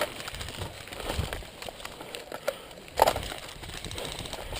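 Close rustling and handling noise, with scattered small clicks and one sharp knock about three seconds in.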